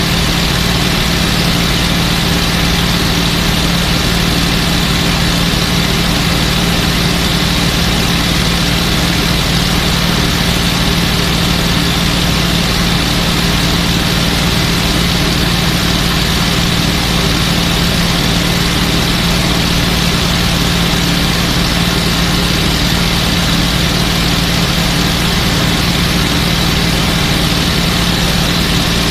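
P-51 Mustang's liquid-cooled V-12 engine droning steadily in flight, heard from inside the rear cockpit.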